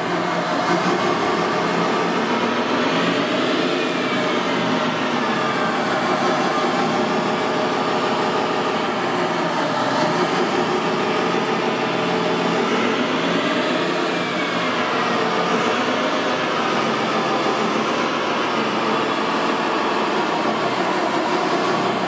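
Electric drive motors and hydraulic pump of a large RC wheel loader whirring steadily as it works its bucket arm and drives off. A faint falling whine comes about three seconds in and again around fourteen seconds.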